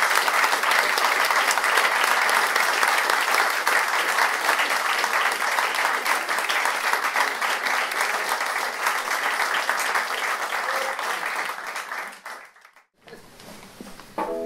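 A roomful of wedding guests applauding the newly married couple. The clapping fades away about twelve seconds in, leaving a short lull.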